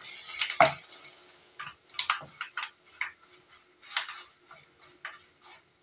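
Steel spoon scraping and tapping against a non-stick kadhai while stirring spices and curry leaves in oil: irregular short scrapes and clicks, about one or two a second.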